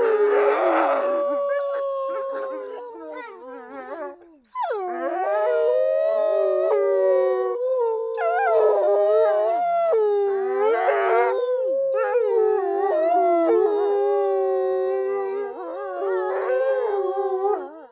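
A pack of wolves howling in chorus: several long, overlapping howls that rise and fall in pitch, with rougher yelping patches near the start and about eleven seconds in. The chorus cuts off suddenly at the end.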